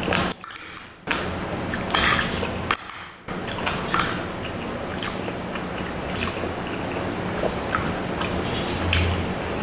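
Close-miked eating sounds: chewing, with a metal spoon and fork clicking and scraping in a glass dish of soupy lomi noodles. The sound drops out briefly twice in the first few seconds.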